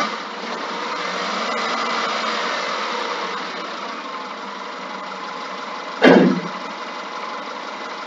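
Subaru Impreza 2-litre flat-four engine running under brake-torque load, its sound swelling over the first couple of seconds and then easing back. It runs without misfire on new spark plugs and leads. A short, loud thump comes about six seconds in. The sound is thin, as picked up by a laptop microphone.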